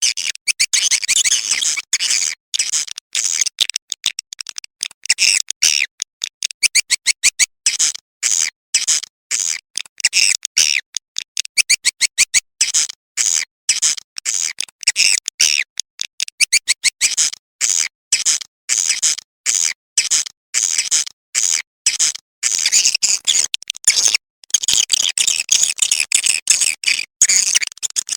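Swiftlet calling-sound track: recorded swiftlet twittering played back as a lure, rapid high-pitched chirps in quick runs broken by short gaps. A sound of this kind is played to draw swiftlets into a nesting house.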